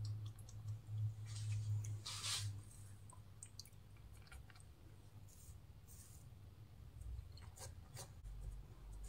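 Hands folding and pressing soft dough over a minced-meat filling: faint rubbing and light handling noises, with a slightly louder rustle about two seconds in. A low steady hum runs underneath for the first couple of seconds.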